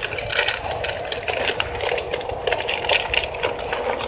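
Dense, irregular crackling and clicking over a hiss, with a low hum and a faint steady tone underneath.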